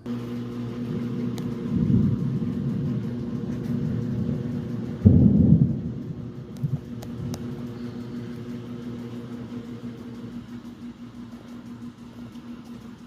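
Thunder rumbling low, loudest in a sharp-onset rumble about five seconds in, over the steady low hum of a washing machine running.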